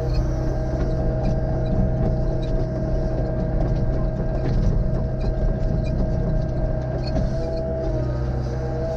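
Excavator running steadily, its engine low and even with a steady whine over it, and faint scattered clicks.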